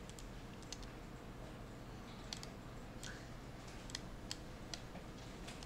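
Scattered, irregular clicks of a computer mouse and keys, about a dozen, over a faint steady low hum.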